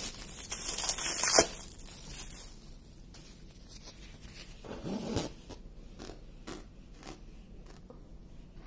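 Plastic cling wrap being pulled away from a rolled canvas: a loud, zipper-like crinkling rip for about the first second and a half. After that comes quieter rustling and handling as the stiff diamond painting canvas is unrolled, with a brief louder rustle about five seconds in.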